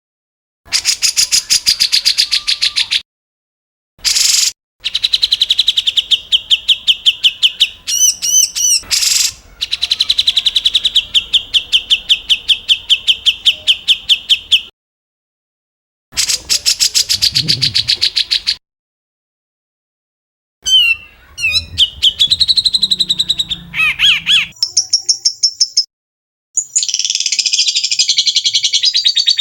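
Songbird 'tembakan kasar' calls: fast strings of harsh, evenly repeated high notes and a few sweeping whistled glides, played as a compilation of separate clips that start and stop abruptly with complete silences between them.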